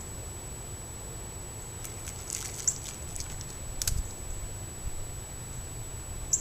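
A white-tailed buck chewing feed: a few crisp clicks and crunches, the loudest about two and a half seconds in, around four seconds in and near the end. They sit over a steady low hiss and a faint thin high tone.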